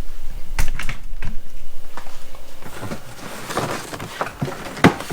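Tools, cases and packaging being handled: irregular light clicks and taps, with one sharper knock near the end.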